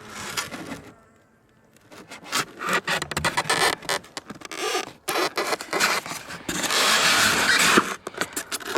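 Irregular scraping and rubbing with short knocks: foam insulation boards and hive frames being pushed tightly into a beehive box. There is a brief lull about a second in and a longer stretch of scraping around seven seconds.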